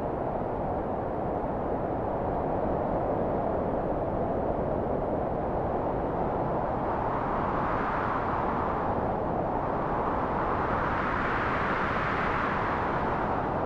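Synthesised high wind: a steady rushing noise whose pitch swells and falls as the filter cut-off is swept, rising to a peak about eight seconds in, dipping, then rising again and falling back near the end.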